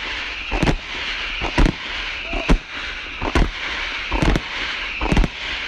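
Fireworks display: ground fountains hissing steadily, with a sharp bang about once a second from bursting shells.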